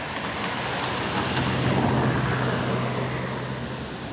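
A motor vehicle passing close by: its engine hum and road noise swell to a peak about two seconds in, then fade as it goes away.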